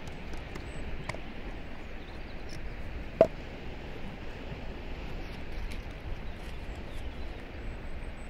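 Small clicks from handling camp-stove gear, with one sharp metallic clink about three seconds in, over a steady outdoor background hiss.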